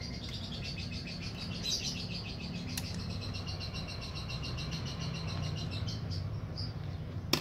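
Rapid, steady high-pitched chirping from a small animal in the background, over a low steady hum, with a single sharp click about three seconds in.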